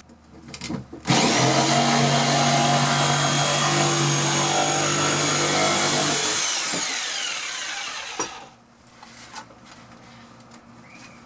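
Jigsaw cutting a small circle through a wall: the saw starts about a second in, runs steadily for about seven seconds, eases off and stops.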